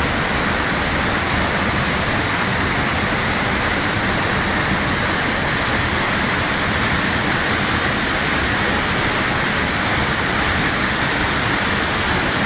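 Düden Waterfall's falling water, a loud, steady rush with no let-up.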